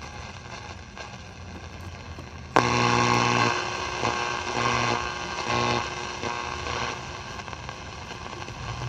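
Shortwave static and hiss from the loudspeaker of a Zenith Trans-Oceanic Royal 7000 radio being tuned across the band. About two and a half seconds in, a louder humming, droning signal cuts in suddenly and swells and fades a few times.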